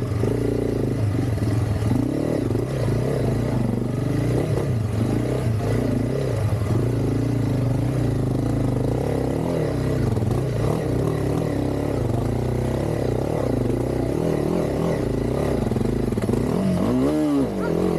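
Honda CRF300 Rally's single-cylinder four-stroke engine running under load as the motorcycle is worked through deep mud, its pitch wavering with the throttle. Near the end the revs rise and fall once.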